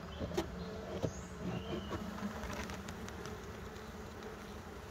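A mass of honeybees clustered on and inside a wooden hive box, buzzing steadily, with two light knocks in the first second or so.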